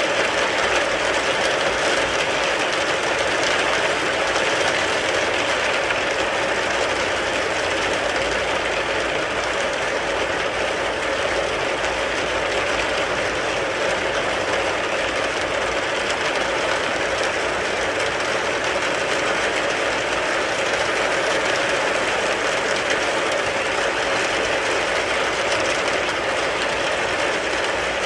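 Rain falling steadily on a car, a dense, even patter with no let-up.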